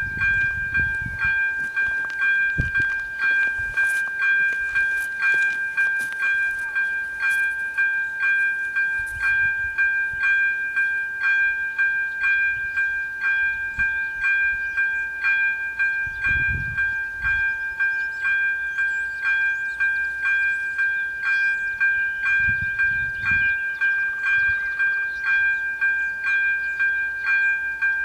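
Electronic warning bell of a Czech AŽD 97 level crossing ringing in steady, evenly spaced strokes, a little more than one a second: the crossing has been activated for an approaching train.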